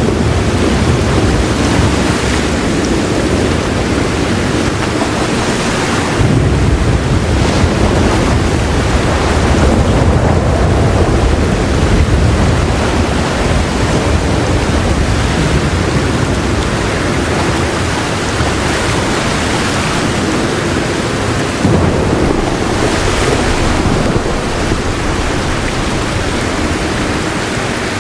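Heavy rain falling steadily, with soft rolling thunder rumbling low underneath, swelling strongest about six to twelve seconds in.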